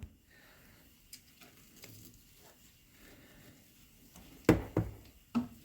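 Quiet room tone with a few faint handling clicks, then a sharp knock about four and a half seconds in and a smaller one about a second later.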